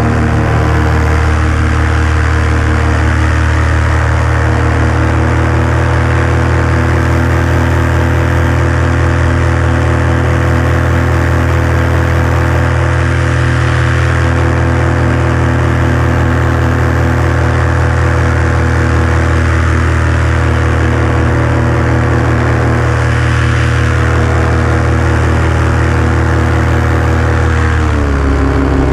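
Engine of a small aircraft running steadily, close to the camera, over a haze of rushing air; its pitch drops near the end.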